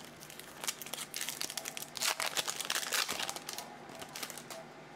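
Foil wrapper of a Topps Finest baseball card pack crinkling in the hands as the pack is handled and opened, busiest around two to three seconds in and thinning out toward the end.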